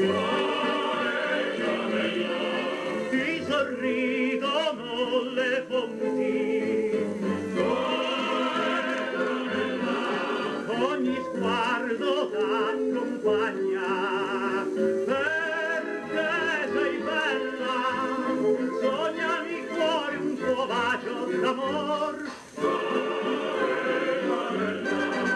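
Old Italian popular song record played on a Garrard Model 88 Mk II record changer: a passage of orchestral music with voices but no clear lyrics, after the sung verse.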